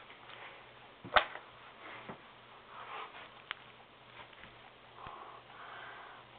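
Quiet handling noise from a plastic action figure being moved by hand: a few light clicks and knocks, the loudest about a second in, with faint breathing between.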